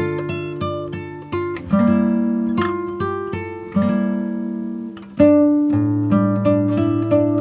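Background music on acoustic guitar: plucked notes and chords, with a new chord struck about two seconds in and again about five seconds in.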